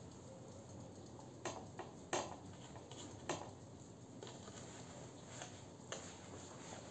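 A handful of faint, scattered clicks and light scrapes of hands and fingers against a large aluminium tray, over quiet room tone.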